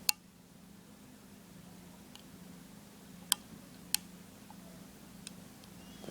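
A few sharp, isolated clicks or taps over a steady low hum: one right at the start, two more a little past the middle, and a couple of fainter ones between.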